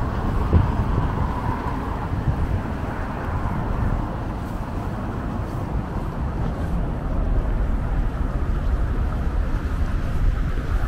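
Steady low rumble of road traffic, with the hiss of a vehicle passing in the first couple of seconds.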